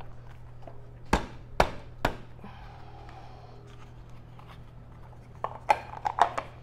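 Hard plastic parts of a Can-Am Ryker passenger seat and backrest knocking and clicking as they are pressed into their mount by hand: three sharp knocks about half a second apart a little over a second in, then a quick cluster of clicks near the end, over a steady low hum.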